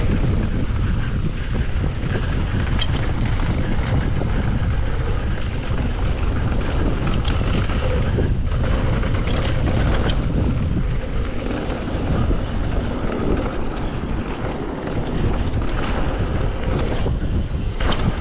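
Wind buffeting the microphone of a mountain bike riding a bike-park trail, a steady loud rumble, with scattered knocks and rattles as the bike runs over the ground.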